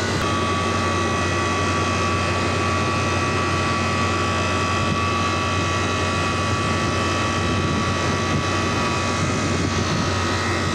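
Walk-in freezer condensing unit running: compressor and condenser fan making a steady drone with a low hum. A thin, steady whine sets in just after the start. The fan has been switched on by its fan-cycle pressure switch.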